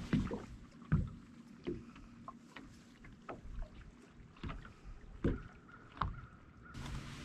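Light knocks and clicks aboard a fishing boat, over water lapping against the hull. A faint steady whine comes in about five seconds in.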